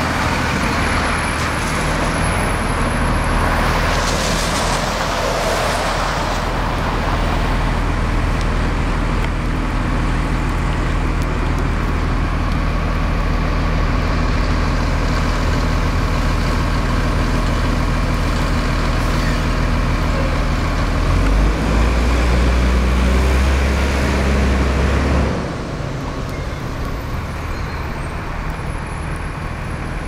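City bus engine idling with a steady low hum over street traffic noise. A hiss rises and fades about four seconds in, and the engine rumble grows louder around twenty-one seconds before dropping off suddenly about twenty-five seconds in.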